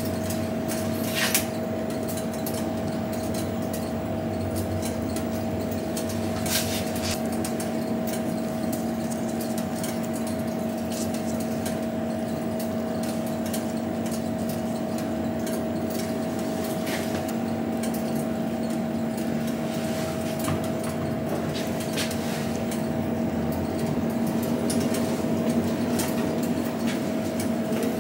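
Steady machine hum of kitchen equipment, holding two constant tones, with a few faint light clicks or taps.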